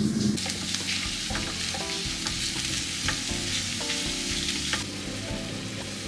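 Food sizzling as it fries in a pan, a steady crackling hiss that eases off about five seconds in.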